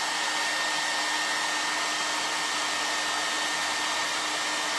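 Handheld hair dryer running steadily, a rush of blown air with a constant high whine from its motor. It is drying freshly applied wet paint shading.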